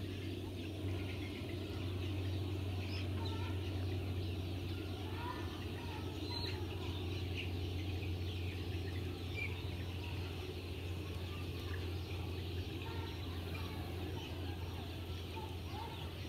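Outdoor ambience of a steady low hum with many short, faint bird calls scattered through it.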